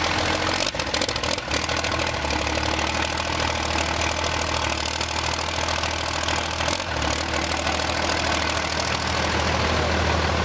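Cummins-powered diesel drag truck idling steadily just after starting, with a few sharp clicks about a second in and a brief dip near the end.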